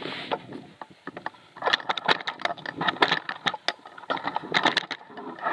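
Rapid, irregular clicks and knocks from about one and a half seconds in: close handling noise of gear and the camera in an aluminum canoe.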